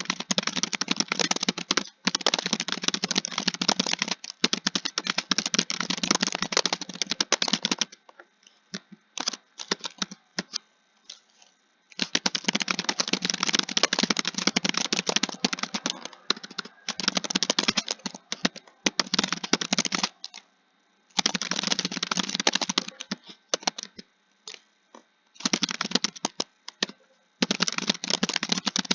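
Computer keyboard being typed on in fast runs of rapid key clicks, broken by short pauses with only a few scattered keystrokes.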